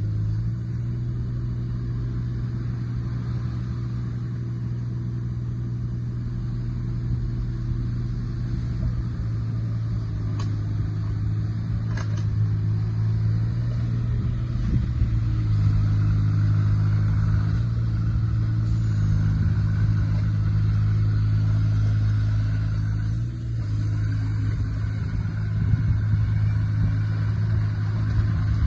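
Excavator's diesel engine running steadily, getting louder about halfway through and dipping briefly near the end.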